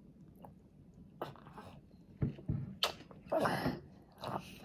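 Toddler sipping spinach and onion soup straight from a bowl held at his mouth, with a few short, noisy slurps; the loudest and longest comes about three and a half seconds in.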